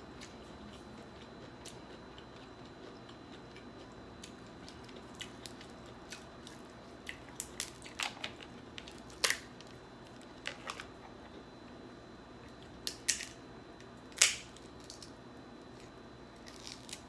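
Snow crab leg shells cracking and snapping as they are broken apart by hand: a scatter of sharp cracks from about five seconds in, the loudest about nine and fourteen seconds in.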